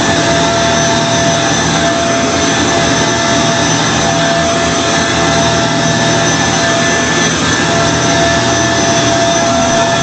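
2006 Kenmore Progressive Intelliclean vacuum cleaner running steadily, its motor noise carrying a high, steady whine.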